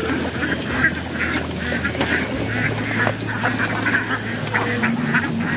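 A flock of domestic ducks quacking, a busy chatter of short calls repeated several times a second.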